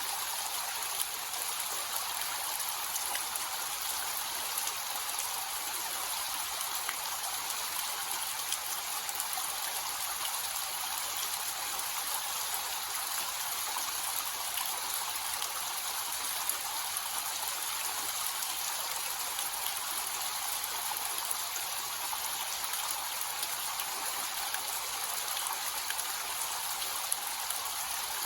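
Small waterfall with a low flow, water splashing and trickling in a steady, unbroken hiss.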